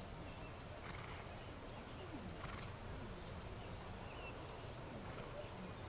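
A horse neighing faintly, with falling calls about two seconds in, over low, steady outdoor background noise.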